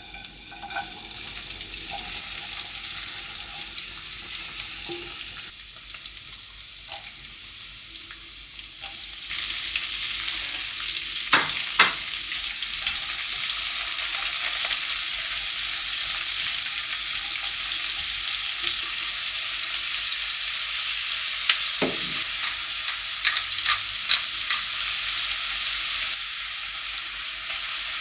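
Food sizzling in oil in a frying pan, a steady hiss that grows louder about a third of the way through, with a few sharp clinks of a utensil against the pan.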